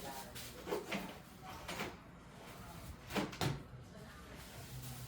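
Knocks and scrapes of a window air conditioner and its plastic side panels being handled in the window frame: a few short clatters, the loudest a pair about three seconds in.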